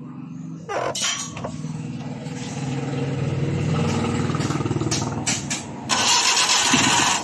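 Multicab mini-truck engine cranked by the starter and catching almost at once, then running, with a short clatter about a second in and a louder rushing noise for about a second near the end. It starts on one turn of the key now that the cracked distributor cap behind its hard starting has been replaced.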